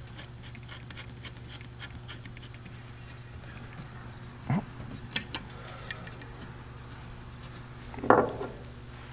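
Faint metal ticks and clicks of small carburetor linkage parts and a screw being handled and fitted on an Edelbrock carburetor's air horn, over a steady low hum, with a short louder sound near the end.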